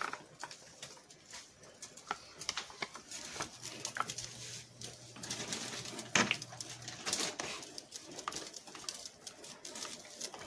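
Spoon stirring and scraping through thick gravy simmering in a skillet, with irregular clicks, knocks and soft pops, the loudest stroke about six seconds in. A low steady hum runs through the middle of it.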